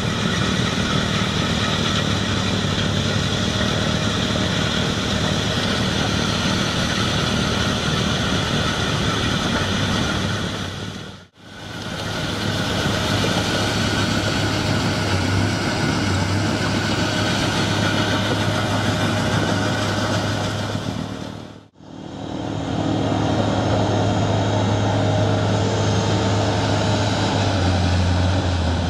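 Giant V452T HD compact wheel loader's diesel engine running under load, driving a hydraulic front-mounted Tokvam snow blower that is throwing snow: a steady mechanical din with a low engine hum underneath. The sound fades out briefly twice, about a third and two-thirds of the way through.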